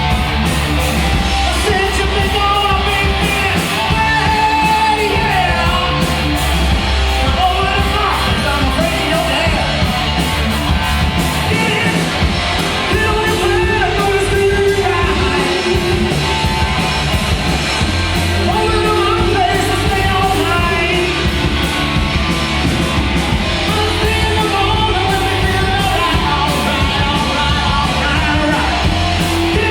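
Loud rock song with a singer over a full band, running without a break.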